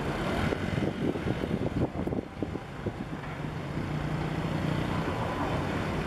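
Wind rumbling and buffeting on the microphone, with a steady engine drone coming in about halfway through.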